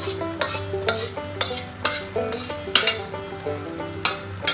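A wooden spoon stirs a thick, sizzling mix of jaggery syrup, cooked rice ada and sago in a non-stick pot, scraping about twice a second. The mixture is cooking down until nearly dry.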